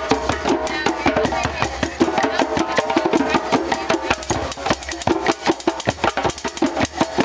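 Drum circle: many hand drums played together, with rapid strikes packed into a dense, driving rhythm.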